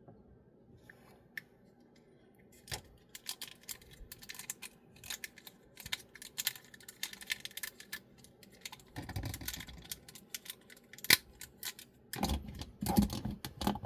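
Plastic transforming robot figure being worked by hand: its joints and parts click and snap in many small irregular clicks, starting about three seconds in, with handling rubs and bumps near the end.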